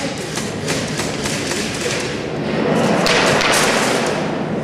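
Airsoft guns firing during an indoor game, with a rapid, irregular string of clicks and thuds from shots and BBs striking the cover. A denser burst comes about three seconds in.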